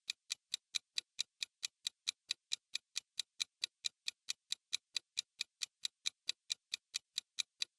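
Clock-style ticking, fast and even at about five ticks a second: a quiz countdown timer sound effect running while the answer is awaited.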